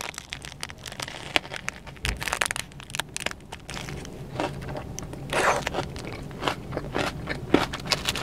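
Close-miked biting and chewing of a nori-wrapped sushi burrito: irregular crunching and wet mouth clicks. A faint steady low hum of the car runs underneath.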